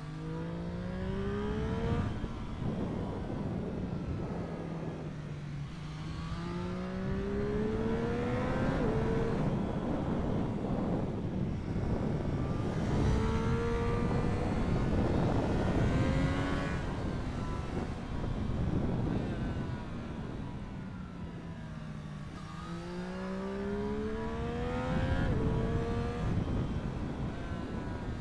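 Triumph Street Triple 765 RS's three-cylinder engine being revved hard through the gears. The pitch climbs in several runs, each ending with a sudden drop at a gear change, with slower falls in between. A steady rush of wind noise lies under it.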